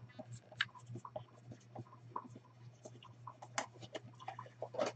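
Faint, scattered light clicks and taps of hands handling things on a tabletop, over a low steady hum.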